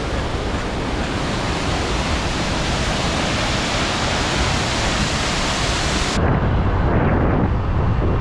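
Waterfall water pouring over rock, a loud steady rush of noise. About six seconds in it cuts abruptly to a motorbike riding along a road, a lower engine and wind sound.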